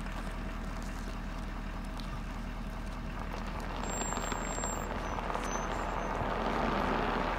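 Steady low hum of a Ford F350 pickup's engine running, heard from inside the cab, growing a little louder over the second half.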